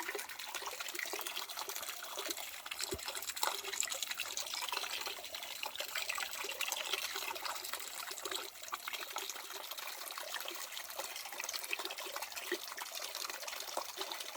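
Spring water trickling and splashing steadily.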